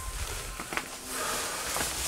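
Rustling and handling noise from someone moving about with a handheld camera, with a few light knocks.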